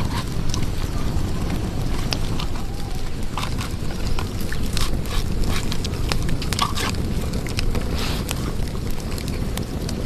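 Wood fire crackling, with irregular sharp snaps over a steady low rumble.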